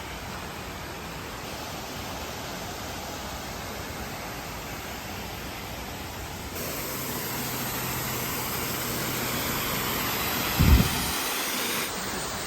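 Steady rush of a waterfall's falling water, louder and brighter from about halfway through, with one brief low thump near the end.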